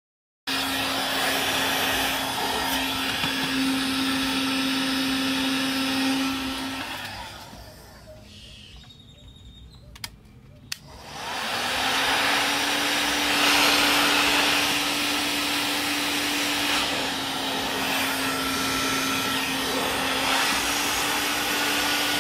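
Handheld electric heat gun running with a steady whir and hum. It cuts out about seven seconds in, then starts up again about eleven seconds in and runs on.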